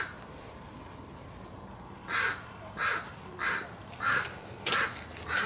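A crow cawing: a run of about six caws, one every half second or so, starting about two seconds in.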